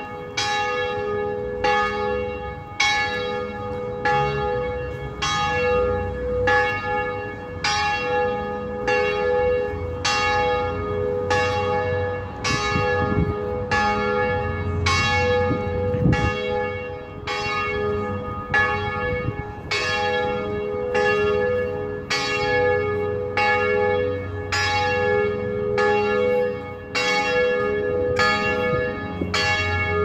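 Liverpool Metropolitan Cathedral's tower bells ringing in a steady run of strokes, a little more than one a second, each ringing on into the next.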